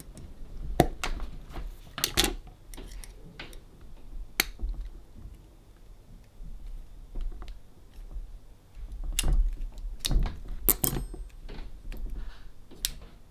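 Irregular sharp metal taps and clicks, a few with a short ring, from knocking a small pin back through on a Roberts RFM3 radio.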